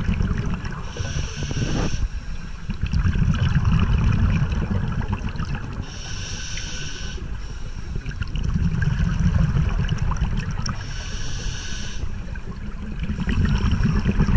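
A scuba diver breathing through a regulator, heard through an underwater camera: a hiss on each inhalation about every five seconds, alternating with the rumble of exhaled bubbles.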